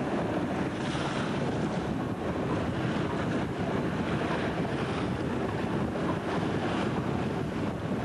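Steady wind buffeting the microphone over the rush of choppy sea water.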